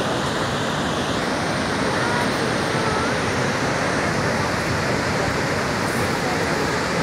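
Niagara Falls: the steady, unbroken rush of a huge volume of falling water and spray, heard from an overlook.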